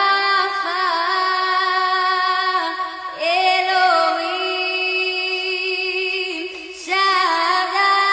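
A song with a woman singing long held notes, sliding up into each phrase, with new phrases starting about every three to four seconds.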